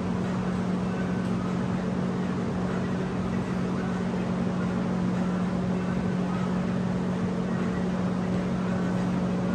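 A steady low mechanical hum holding one constant pitch over an even rushing noise, with no change in level.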